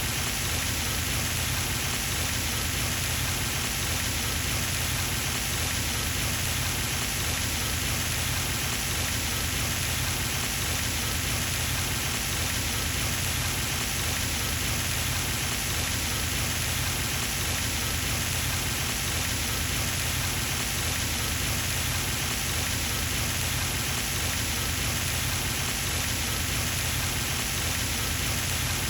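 Pond fountain splashing steadily, its falling water hissing evenly onto the pond surface, with a low rumble underneath.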